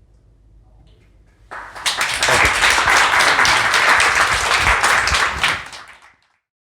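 Audience applauding: a crowd of hand claps that begins about a second and a half in, holds strong for about four seconds and dies away near the end.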